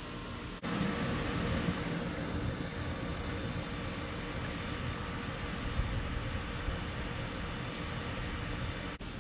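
Steady outdoor background noise with a low rumble. It drops out for an instant about half a second in and again near the end.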